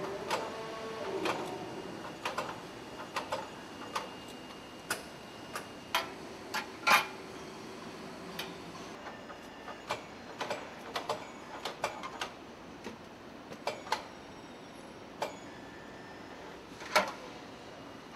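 Assembly-line work on car components: irregular sharp metallic clicks and knocks of parts and hand tools being fitted, over a faint steady factory background. A louder knock comes about seven seconds in and another near the end.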